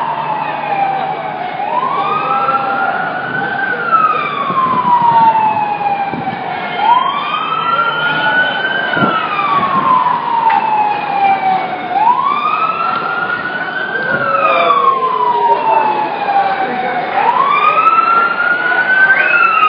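Emergency vehicle siren on a slow wail: each cycle rises in pitch over about two seconds and falls over about three, repeating for the whole stretch. A fainter second gliding siren tone is heard over steady street noise.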